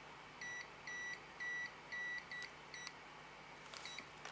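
UNI-T UT210E clamp meter's non-contact voltage (EF) buzzer beeping about twice a second, some beeps shorter than others, as its tip senses the electric field of live AC mains wiring.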